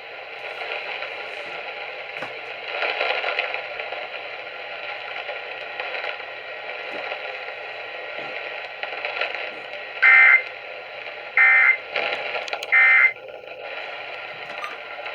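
Hissing radio static, then three short bursts of warbling digital data tones about a second and a half apart: the EAS end-of-message (EOM) signal closing an Emergency Alert System activation.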